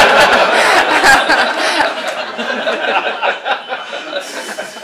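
A roomful of people laughing together, loudest at first and dying away over about four seconds.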